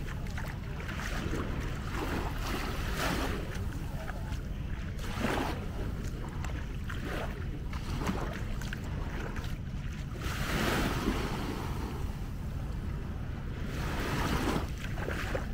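Sea waves washing onto a beach, surging every few seconds, with wind rumbling on the microphone.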